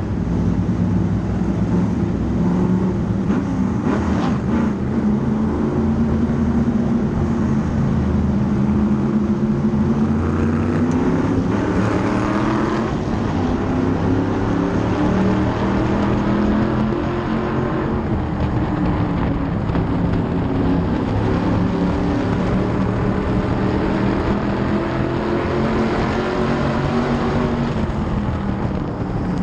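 An SK Light modified race car's engine, heard onboard, running steadily at low speed under a caution. Its pitch rises and falls gently as the throttle is eased on and off.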